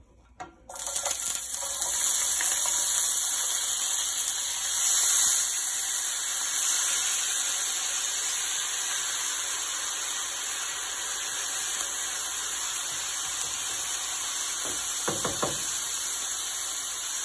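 Diced tomato, onion and green pepper sizzling steadily in hot oil in a stainless steel skillet, starting suddenly under a second in as they hit the pan. A few soft knocks come near the end.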